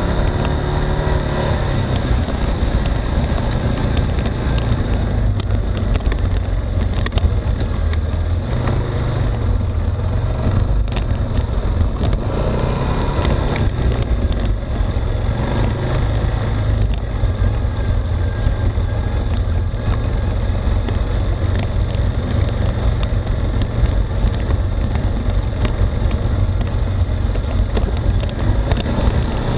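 ATV engine running steadily at low trail speed down a rough dirt descent, a continuous low drone, with wind on the microphone and scattered knocks and rattles from the bumpy ground.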